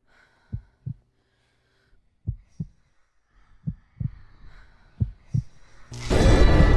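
Heartbeat sound effect: low double thumps (lub-dub) about every one and a half seconds, coming slightly quicker toward the end. About six seconds in, a sudden loud, harsh burst of noise cuts in over it.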